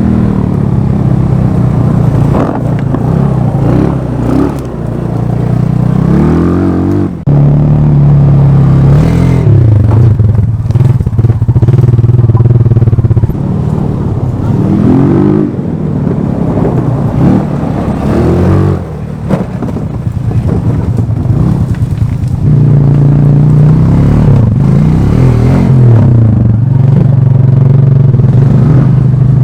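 GY6 150cc single-cylinder four-stroke scooter engine driving a converted Power Wheels jeep, revving up and dropping back again and again while it runs hard.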